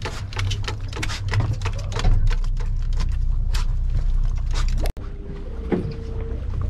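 A lake trout flopping in a rubber landing net on a boat's fiberglass deck makes a rapid, irregular run of slaps and taps over the steady low rumble of the boat's motor. About five seconds in the sound breaks off abruptly, and a steady hum follows.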